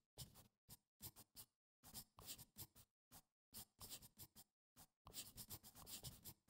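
Faint handwriting sound: a string of short scratching strokes from a writing tool, with brief pauses between them, keeping time with the title being written out.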